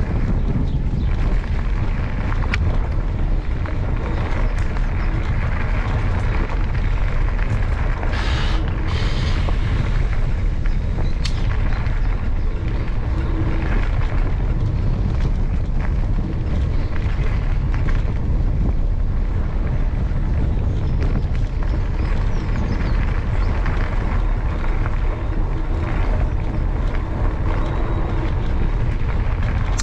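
Wind buffeting the action camera's microphone as the mountain bike rolls along, a steady low rumble, with a few sharp clicks and a short hiss about eight seconds in.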